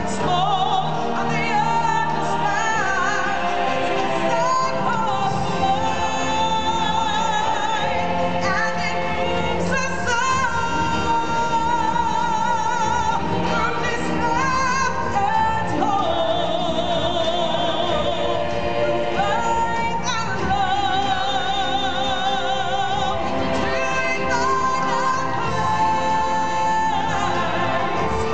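Music: a singer holding long notes with a wavering vibrato over full accompaniment, with no clear words.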